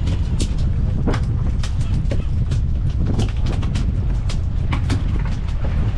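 Steady low rumble of a fishing boat's engine and wind, with irregular sharp knocks and clicks over it, roughly three a second.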